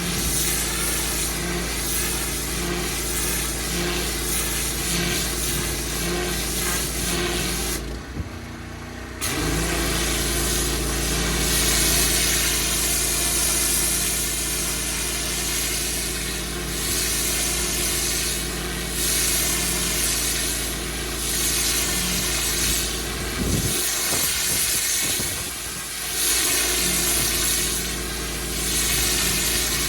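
Pressure washer running with water spraying: a steady machine hum under a loud hiss. It goes briefly quieter about 8 seconds in and again past the middle.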